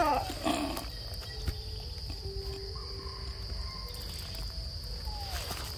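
Steady high-pitched drone of forest insects, with a brief wavering call right at the start.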